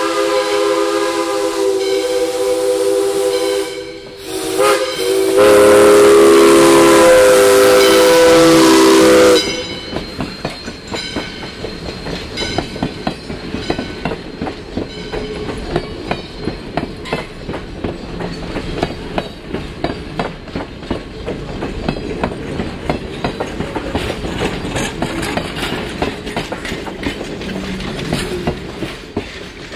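Steam locomotive whistle blowing for a grade crossing: the end of a long blast, a short blast, then a loud long blast that stops about nine seconds in. After it, the passenger coaches roll past with a steady clickety-clack of wheels over the rail joints.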